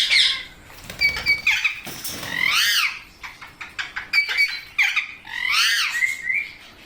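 Young rose-ringed parakeets squawking and chirping: about five bursts of short, high calls that arch up and fall in pitch, with small clicks in between.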